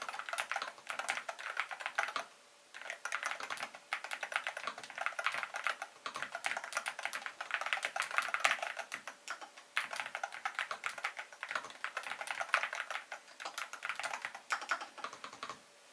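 Fast typing on a Cherry MX 8.2 Pro TMR TKL keyboard with Cherry magnetic (TMR) switches of 38 g, a dense run of key clicks in bursts with brief pauses.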